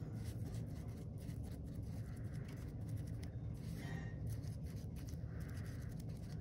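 Foam brush stirring glitter into white paint in a small cup: faint, irregular scraping and dabbing strokes over a steady low hum.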